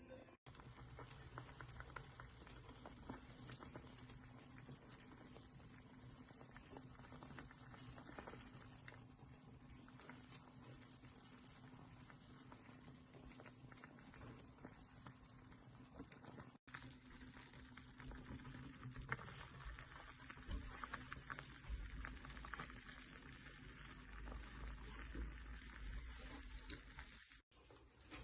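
Faint bubbling of lemon and ginger simmering in a pot of water: a steady fizz of small pops, with a low hum underneath.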